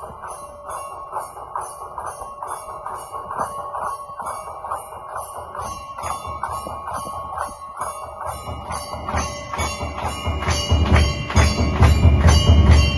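Music built on bells struck rapidly and evenly, about three or four strikes a second, with a steady ringing tone underneath. About nine seconds in a deep, heavy beat joins and it grows louder.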